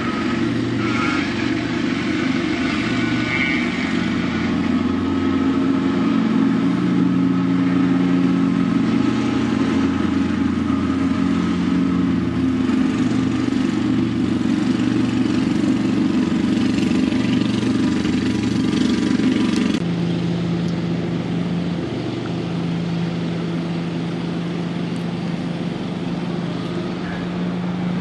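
Ride-on lawn mower's engine running steadily while mowing. About two-thirds of the way through, the sound drops a little in level and pitch.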